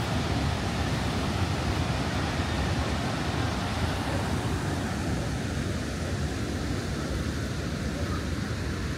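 The Rhine Falls waterfall: a steady, even rush of heavy falling water, strongest in the low range.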